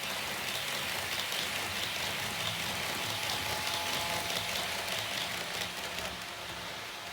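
HO gauge model train running along the track: a steady hiss of wheels and motor with a faint whine and fine clicking from the rails.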